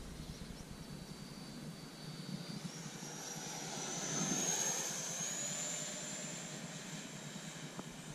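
Twin 64 mm electric ducted fans of a Freewing F-14 Tomcat model jet whining as it flies past: a high whine that rises in pitch, grows loudest about four seconds in, then fades.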